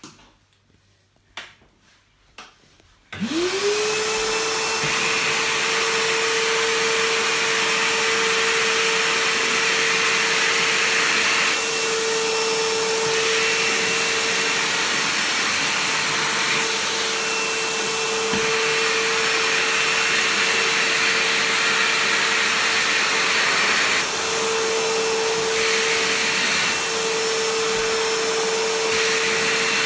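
Stanley FatMax 51733 1600 W wet/dry vacuum switched on about three seconds in: its motor whines up to speed within half a second, then runs steadily with a loud rush of air while vacuuming a hard floor. A few faint knocks come before it starts.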